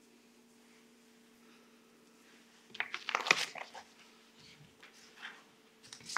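A steady low hum under a quiet room. Just before the middle comes about a second of rustling and clicking handling noises as people move at a wooden lectern, followed by a few softer rustles.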